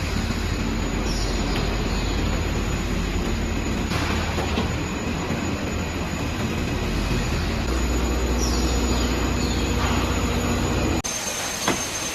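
Production-line machinery running steadily with a low hum. Faint falling squeals come about a second in and again near the end, and the sound changes abruptly about 11 seconds in.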